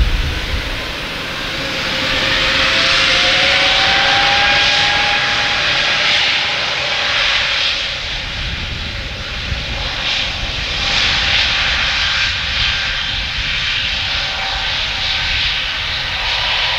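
Airliner turbofan engines whining and hissing on the ground: an Airbus A320neo rolling along the runway, then an Embraer E170 with its GE CF34 engines taxiing. A whine rises in pitch a few seconds in.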